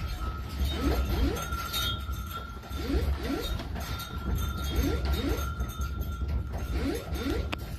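Household objects clinking and rattling during earthquake shaking, over a low rumble. A pair of short rising squeaks repeats about every two seconds, and a steady high tone runs underneath.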